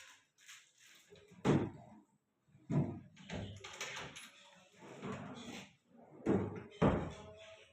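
A handful of dull, heavy thuds or knocks at irregular intervals, with fainter clatter between them.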